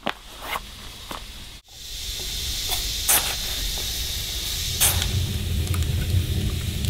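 A wood stove's fire burning with a steady hiss and a few sharp pops. Before it, a few soft clicks.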